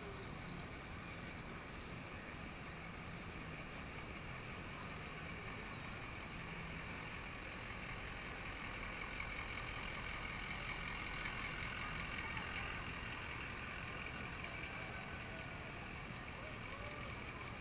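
A pickup truck's engine running as it drives slowly past, growing a little louder as it passes and then easing off, over steady street background noise.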